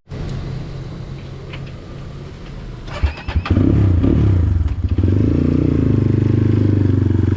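Motorcycle engine ticking over, then a few clicks and the engine revs up about three and a half seconds in, settling into a steady, louder run as the bike pulls away.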